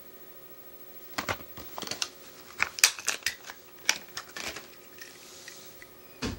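Plastic blister pack of a Hot Wheels car being pulled open: a run of sharp, irregular plastic crackles and clicks for a few seconds, then one more click near the end.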